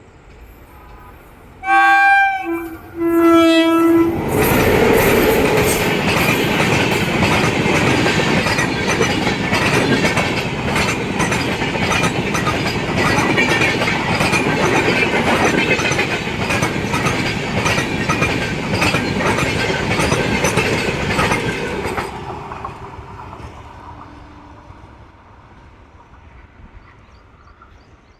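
Indian Railways electric locomotive sounding its horn in two blasts, then a passenger train passing close by with a rhythmic clickety-clack of wheels over rail joints for about eighteen seconds, fading away near the end.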